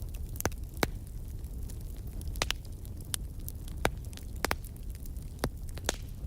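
Campfire burning: a steady low rumble of flames with about ten sharp crackles and pops at irregular intervals.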